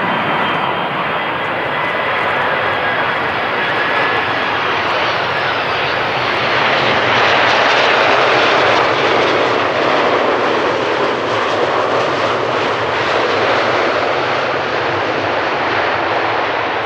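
Four-engine Airbus A340 jet airliner landing, its engines running with a steady rushing noise. A faint high whine fades out in the first few seconds, and the noise swells to its loudest about halfway through before easing slightly.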